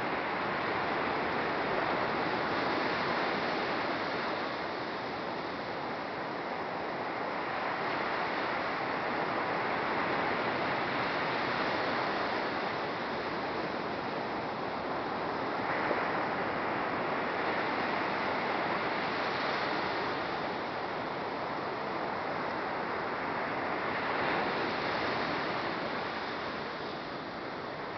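Surf breaking on a sandy beach: a steady wash that swells and fades every few seconds as waves roll in.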